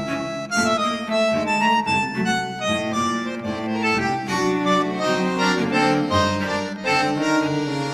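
Instrumental background music: a melody on a reedy wind instrument like harmonica or accordion over a steady accompaniment.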